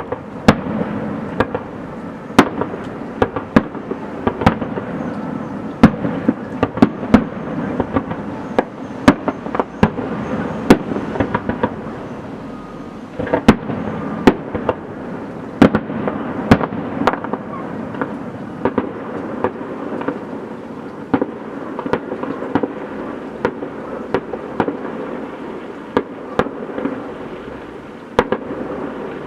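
Fireworks display: many sharp bangs of bursting shells at irregular intervals, some in quick clusters, over a continuous din of further bursts.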